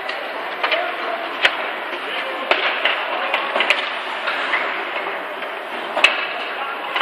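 Ice hockey play heard in an arena: about half a dozen sharp clacks of sticks and puck, the loudest about six seconds in, over a steady hiss and distant shouting voices.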